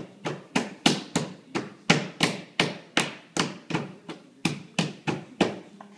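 A baby slapping a wall with his open hands over and over: a run of about sixteen sharp slaps, roughly three a second, evenly spaced and all about equally loud.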